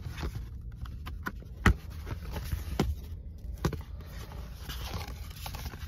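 Cardboard CD packaging being handled: rubbing and rustling with a few sharp taps, the loudest about a second and a half in, over a steady low rumble.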